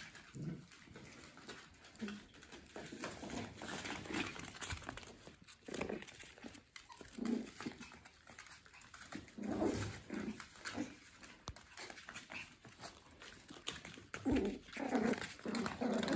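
Papillon puppies play-fighting, with repeated short puppy growls and yips, busiest about halfway through and again near the end.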